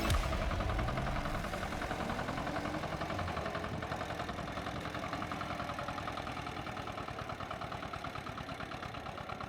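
Diesel engine of a Hummax Megator hand cultivator running steadily, with an even rapid pulsing beat that fades slightly.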